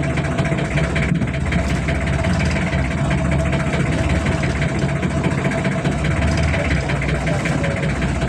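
Outrigger fishing boat's engine running steadily, a constant low hum with a thin steady whine above it.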